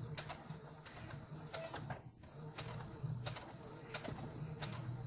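Electric sewing machine stitching in short stop-and-start runs: its motor hum comes and goes, with light clicks throughout.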